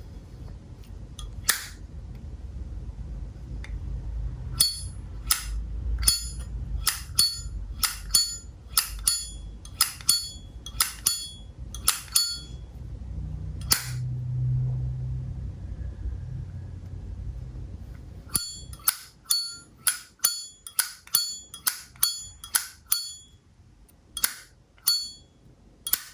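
1988 solid-brass Zippo lighter being flicked open and snapped shut over and over: sharp metallic clicks with a bright ringing ping, in two quick runs separated by a pause of a few seconds.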